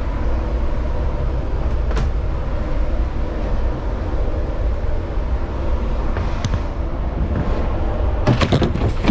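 A fibreglass engine hatch cover in a lifeboat floor being opened and handled: a sharp knock about two seconds in, and a clatter of knocks near the end. Under it runs a steady low machinery hum.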